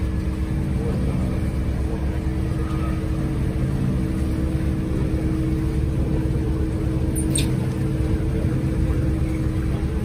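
Motorboat engine running steadily, a low even hum heard from on board. A brief high chirp comes about seven seconds in.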